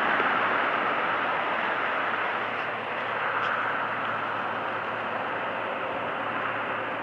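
Class 55 Deltic diesel locomotive D9009 'Alycidon' with its two Napier Deltic engines running: a steady rushing drone over a faint low hum.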